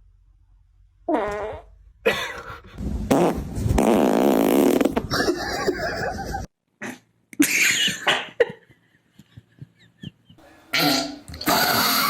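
A series of fart sounds: a short one about a second in, a long buzzing one lasting several seconds, then a shorter one and another near the end.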